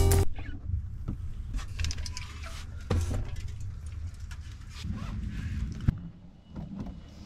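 Drink cans and other items being handled and stowed in a camper van: rustling and handling noise with a few light knocks and clicks.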